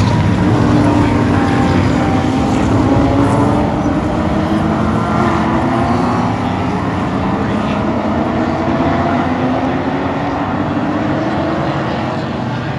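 A pack of historic touring cars racing past, many engines running hard at once, with their pitches rising and falling as the cars go by.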